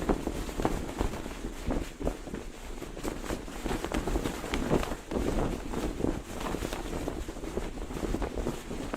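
Cloth flag flapping and snapping in the wind, with irregular sharp cracks over a steady rush of wind.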